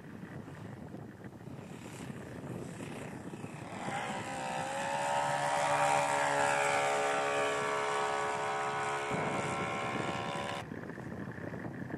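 Engine and propeller of a large radio-controlled Piper Cub model aircraft running steadily in flight. The droning note swells as the plane passes close, about five seconds in, then stops suddenly near the end.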